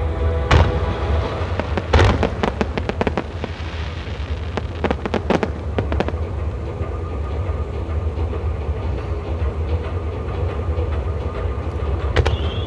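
Japanese aerial fireworks bursting: single sharp bangs, then a rapid run of reports about two seconds in and another around five seconds, over a steady low rumble.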